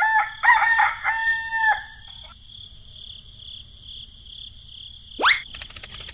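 Rooster crowing once, a cock-a-doodle-doo about two seconds long, over a steady high tone. About five seconds in comes a quick rising swoosh, followed by rapid clicking.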